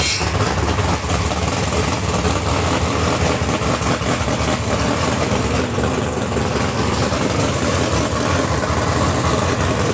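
Naturally aspirated 632ci big-block Chevy V8 of a drag jet boat running at a steady, loud idle.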